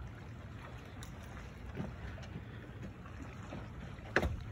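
Steady low wind rumble on the microphone of an open boat, with a few faint clicks and a sharp knock near the end.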